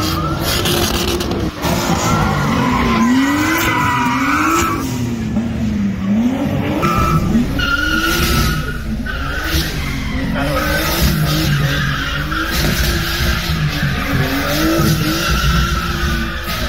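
A drifting car's engine revving up and down over and over, its pitch rising and falling about once a second, while the rear tyres squeal in long stretches as the car slides sideways.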